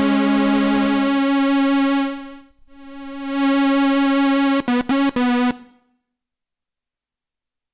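DIY analogue synthesizer (Ad-vantage 03M) holding a sustained note rich in overtones, which first sounds together with a lower note. About two and a half seconds in, the note dies away with its highs going first and swells back, then it is re-struck three times in quick succession and stops about six seconds in.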